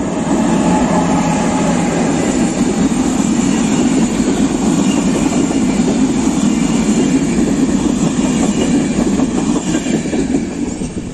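Electric-hauled passenger train passing close by: an HŽPP class 1142 locomotive followed by its coaches, wheels running on the rails in a steady loud noise. It dies away near the end as the last coach goes by.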